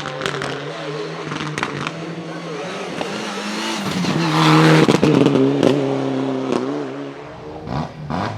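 Mitsubishi Lancer Evo IX Group N's turbocharged four-cylinder engine running hard, with sharp pops and bangs from its anti-lag misfiring system. The engine is loudest about halfway through, and a fresh run of pops comes near the end.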